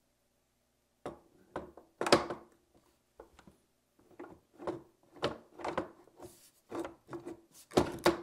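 Handling sounds as a 3D printer's gantry frame is lifted and fitted into slots in its base: a string of irregular knocks and rubbing scrapes, starting about a second in.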